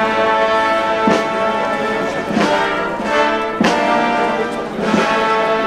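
Brass band playing a slow processional march: held brass chords with a drum stroke about every second and a quarter.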